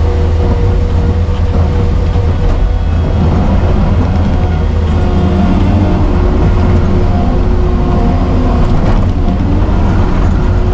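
Diesel engine of an earthmoving machine running steadily and loudly.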